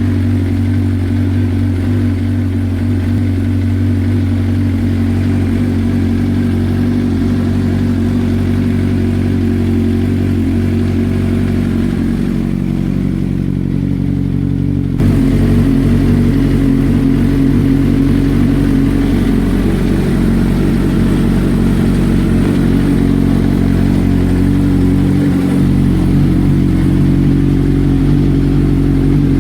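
2010 Suzuki GSX-R1000's inline-four engine idling steadily, getting suddenly louder about halfway through.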